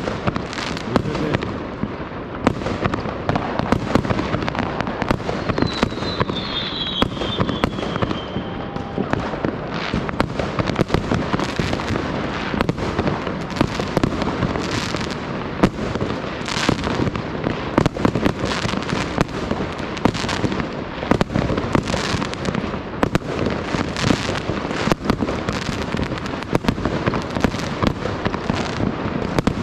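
New Year's fireworks going off densely all around: a constant barrage of overlapping bangs, pops and crackle from many launches at once. There is a short falling whistle about six seconds in.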